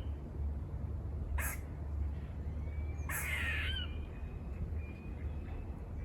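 Squirrel giving harsh barking alarm calls: a short bark about a second and a half in, then a longer rasping one about three seconds in.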